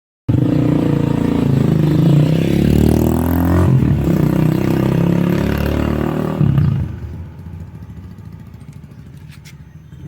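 Motorcycle engine running and revving, its pitch rising and falling. It cuts in suddenly and drops to a much lower, quieter running sound about seven seconds in.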